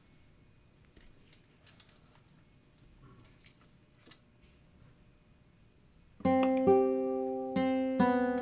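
A few faint clicks while an old film camera is handled, then, about six seconds in, acoustic guitar music starts: picked single notes that ring on and fade, about two a second.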